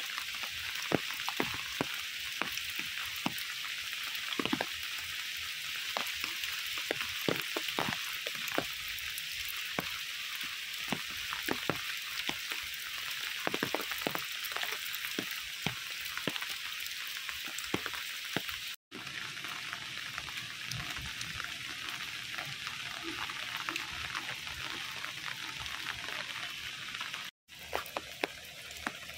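Steady rain falling: an even hiss with frequent sharp, close taps of drops. The sound breaks off twice at cuts and is softer after the first.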